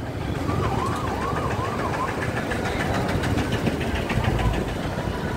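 A warbling siren rising and falling quickly, about three sweeps a second, for over a second near the start, over the steady rumble of street traffic and engines.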